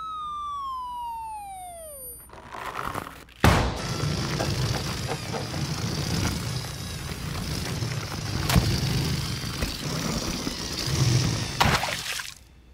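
Cartoon sound effects: a falling, slide-whistle-like tone with overtones for about two seconds, then a sharp hit, then a long rushing noise with a few knocks while the pufferfish flies about; the noise dies away near the end.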